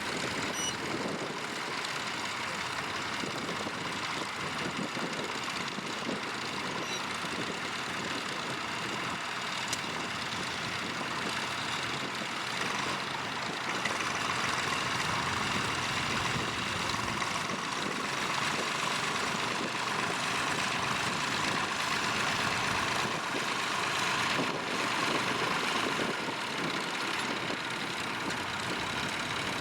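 Tractor engine running steadily, growing somewhat louder about halfway through.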